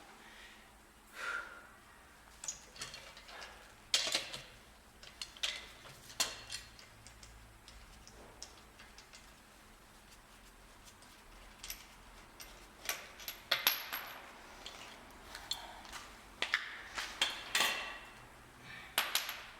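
Metal tools clinking and tapping on a rusted wheel lock bolt: irregular sharp clicks and knocks, with a brief metallic ring about two-thirds of the way through.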